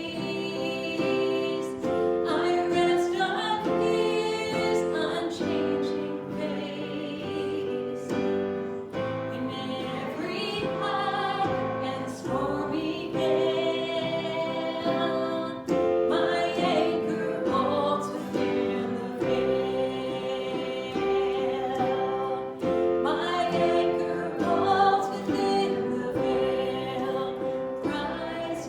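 Voices singing a worship song over sustained instrumental chords.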